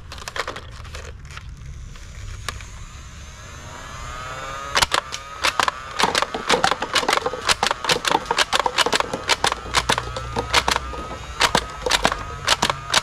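Battery-powered toy machine-gun blaster firing at a stack of paper cups. A steady motor hum rises into a whine, then from about five seconds in come rapid clicks of shots, with paper cups being hit and knocked over.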